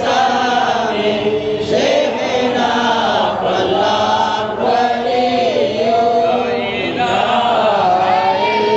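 A group of men chanting a devotional recitation together, melodic and without a break.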